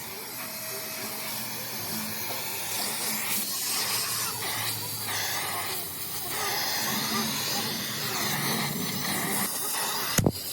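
A steady hiss, with a short sharp knock near the end.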